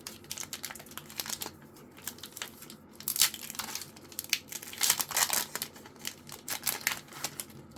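Foil booster-pack wrapper of a Pokémon trading card pack crinkling and tearing as it is opened by hand, an irregular run of sharp crackles.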